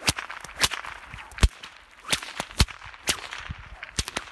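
A whip cracking repeatedly: a rapid series of about eight sharp cracks, roughly two a second, at uneven spacing.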